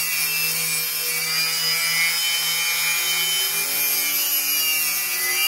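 Angle grinder running with an abrasive disc against a titanium bicycle frame's welded rear dropout, grinding the weld smooth: a steady high whine over the scraping of disc on metal. It cuts off abruptly at the end.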